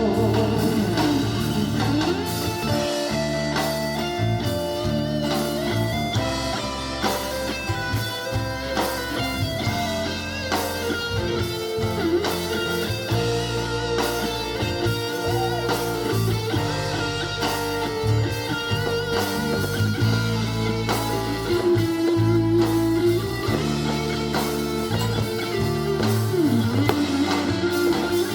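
Band instrumental break: an electric guitar plays a lead melody with bent notes over bass and rhythm accompaniment.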